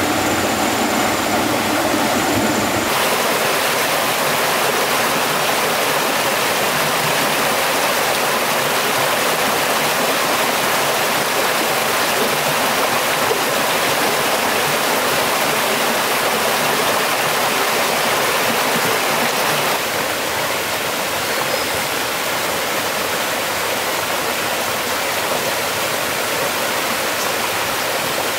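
Stream water rushing, a steady dense wash of sound. It changes character abruptly about three seconds in and gets slightly quieter about twenty seconds in.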